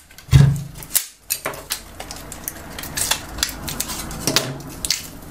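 Hard clicks, cracks and clatter of a plastic laptop battery case being pried apart with pliers and its block of 18650 cells handled. There is a loud knock about half a second in.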